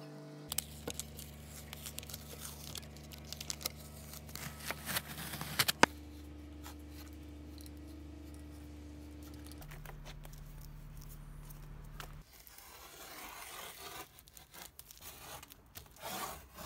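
Hands working masking tape: scratching and tearing sounds with many small clicks, ending in a sharp crack about six seconds in. Later, crinkling of thin plastic film being pressed and smoothed by hand. A low steady hum of sustained tones runs underneath and shifts in pitch a few times.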